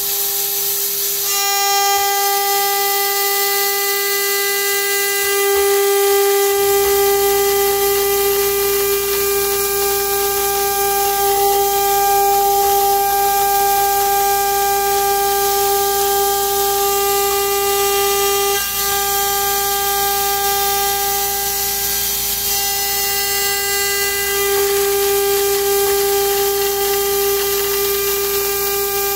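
CNC router spindle whining steadily at high speed while a 1/32-inch two-flute ball end mill cuts an aluminium plate, with the hiss of an air-blast nozzle. A low hum joins about six seconds in.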